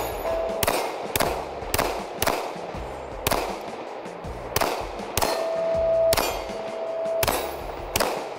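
HK VP9 9mm pistol firing a string of about a dozen shots at an irregular pace, one every half second to a second, with longer gaps between a few of them.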